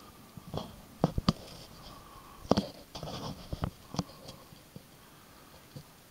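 A run of irregular sharp knocks and clicks, the loudest just after one second and again at about two and a half seconds, with a short scraping rasp near three seconds.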